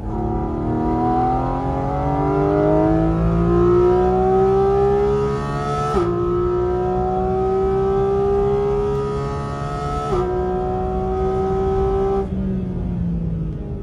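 Porsche GT4's engine pulling hard on a track, its pitch rising steadily and dropping suddenly at two upshifts, about six and ten seconds in. Near the end the high part of the note falls away as the throttle is lifted.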